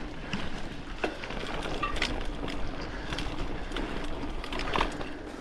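Mountain bike rolling over a dirt trail: steady tyre and wind noise with scattered clicks and rattles from the bike.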